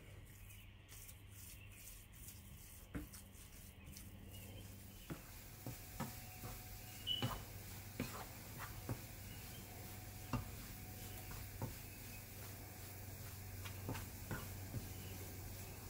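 Wooden spatula stirring and scraping moong dal being roasted in a nonstick frying pan, with irregular taps against the pan, more frequent after about five seconds. Under it are a faint sizzle of frying and a steady low hum.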